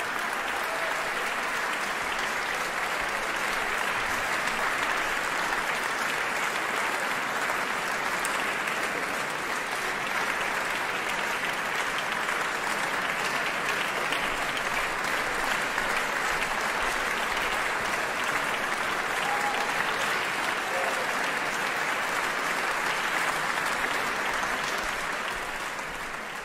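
Audience applauding in a concert hall, a dense, steady clapping that starts to die away near the end.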